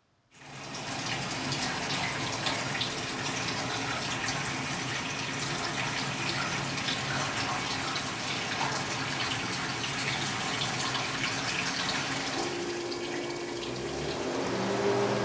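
Liquid running in a steady stream from a spigot on a large plastic chemical container into a film developing tank, splashing as the tank fills. A low steady hum joins near the end.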